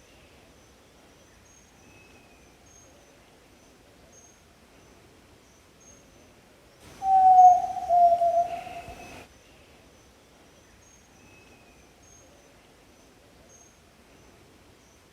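Yellow-legged tinamou (jaó-do-sul) giving one hollow, low whistled call about seven seconds in, a tone sliding slightly down over about two seconds. Faint short high chirps repeat throughout.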